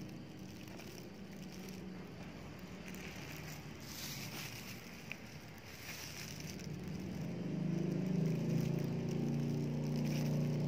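A serrated knife sawing down through a layered red velvet cake with crumb topping, with faint crumbly crackling. About seven seconds in, a low steady hum comes in and stays.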